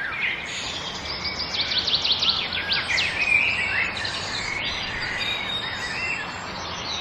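Several songbirds chirping and singing over a steady hiss of outdoor ambience, with a fast trill of rapid high notes about two seconds in.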